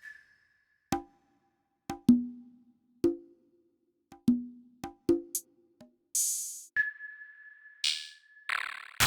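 Drum and percussion sounds from the Korg Triton Extreme VST played one by one, roughly one hit a second: short pitched knocks with a brief low ring. Near the end come a burst of hiss, a held high tone and a noisy sweep.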